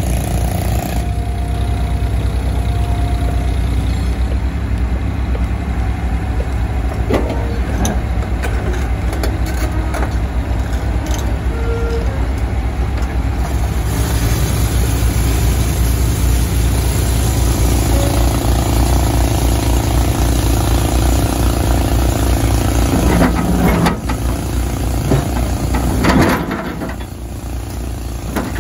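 Tata Hitachi 120 excavator's diesel engine running steadily under load as it lifts a large boulder and swings it over to a truck. Near the end comes a loud knock as the boulder is set down in the truck's steel body, and the engine noise drops off right after.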